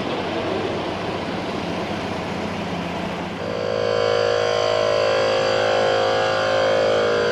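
A steady background rumble, then about three and a half seconds in a small electric tyre compressor starts and runs steadily with an even, pitched hum, inflating a car tyre.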